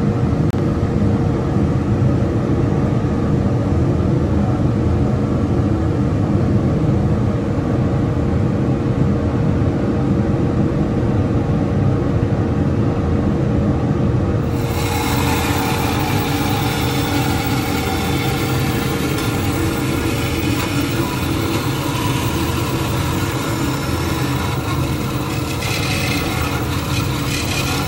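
A machine motor running steadily with a continuous low hum. About halfway through, a high hiss joins it.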